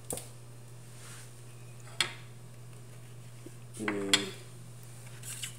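A few sharp clinks and knocks of utensils and containers against a stainless steel pot, the loudest about two seconds in, over a steady low hum.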